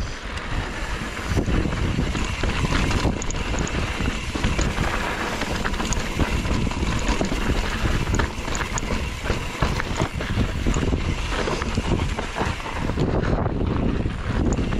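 Wind buffeting the microphone of a camera riding along on a moving mountain bike, with a steady rumble of trail noise and scattered small clicks and rattles.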